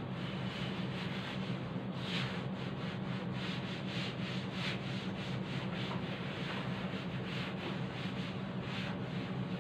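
A cloth being rubbed back and forth across a chalkboard, erasing chalk writing in quick strokes, a few a second, starting about two seconds in.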